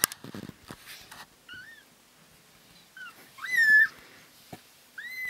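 Young kittens, about two and a half weeks old, mewing in high, squeaky calls: a short one about a second and a half in, then a longer, louder mew that rises and holds, and another starting near the end. A few light scuffling taps come in the first second.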